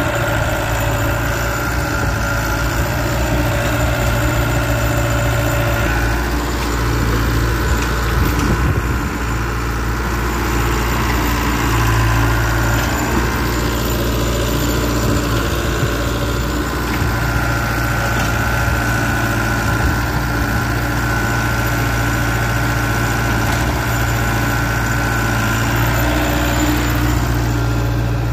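Doosan DH60 mini excavator's diesel engine running steadily at idle, with a steady high whine over the low engine note.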